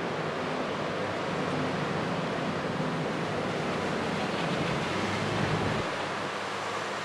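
Typhoon wind blowing, a steady rushing noise with a low rumble that eases off about six seconds in.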